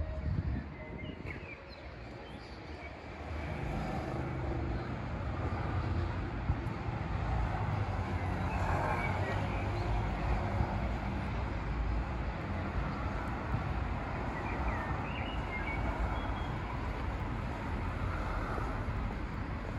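City street ambience: a steady rumble of passing traffic, growing louder about three and a half seconds in and then holding.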